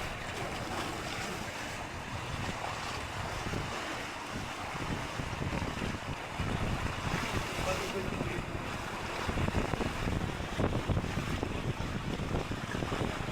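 Wind buffeting the microphone, with sea water washing in the background.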